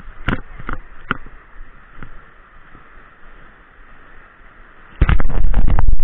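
Steady rush of a fast jungle river rapid, with a few sharp knocks in the first second. About five seconds in, a loud, distorted burst of rubbing and knocking lasting about a second: an arm brushing against the body-worn action camera.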